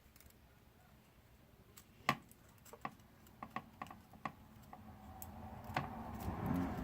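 Scattered small clicks and taps of the Phantom 3 Pro's gimbal camera parts being handled, the loudest about two seconds in, followed by rising rustling near the end.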